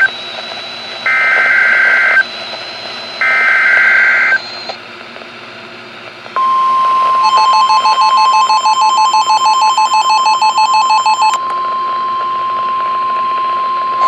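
NOAA Weather Radio Specific Area Message Encoding (SAME) header: the warbling digital data bursts sent three times, the first ending right at the start. A pause follows, then the steady 1050 Hz warning alert tone about six seconds in, which announces a new warning. For about four seconds a rapidly pulsing electronic beep is layered over the tone, and it cuts off with a click.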